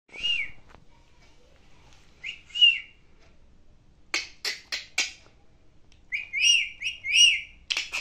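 Indian ringneck parakeet calling: short arched whistled notes, then a quick run of four harsh clicks about four seconds in, and a rapid string of whistled notes near the end.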